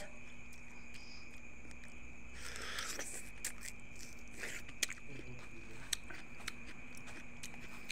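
A person biting and chewing juicy yellow watermelon: scattered small wet clicks, with a short hiss about two and a half seconds in. A faint steady high tone hums underneath.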